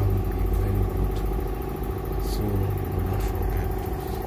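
A motor running steadily: a low rumble with a constant hum above it and a few light clicks.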